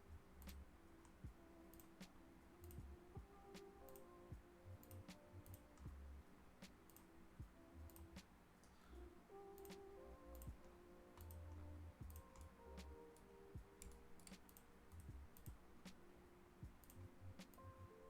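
Faint, irregular clicks of a computer mouse and keyboard, over soft background music with low sustained notes.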